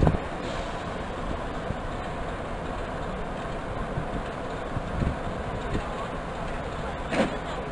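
BR Class 46 'Peak' diesel locomotive running at low power as it creeps forward, a steady low rumble of its Sulzer twin-bank diesel engine. A brief sharp sound near the end.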